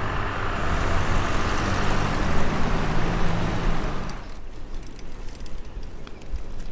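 A motor vehicle's engine running close by, which cuts off abruptly about four seconds in. Quieter background noise with a few light clicks follows.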